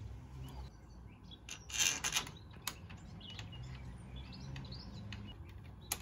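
Small birds chirping outdoors. About two seconds in there is a brief, loud scraping noise in two pulses, followed by sharp clicks, as the smart lock cylinder is pushed into the door's lock case.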